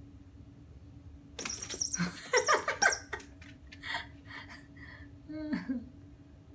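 A person laughing in a quick run of bursts for about a second and a half, then a few softer giggles and a short vocal sound falling in pitch near the end.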